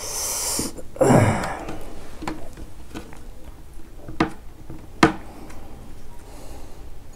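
Close-up sniffing and breathing of a man at a meal, with a loud breath about a second in, then two sharp clicks about a second apart as his fingers work the food on a steel plate.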